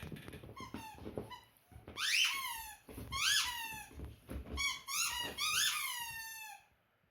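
Squeaky toy squeaking over and over: quick short squeaks at first, then longer squeaks that rise and fall in pitch about once a second, the last one drawn out, ending shortly before the end.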